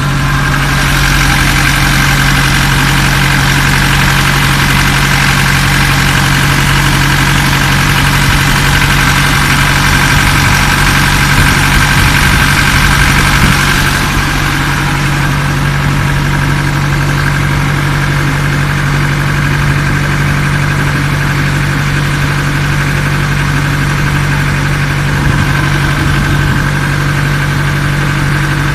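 Ferry boat's engine running steadily under way, a loud low hum with a hissing rush on top; the hiss eases about halfway through while the engine note holds.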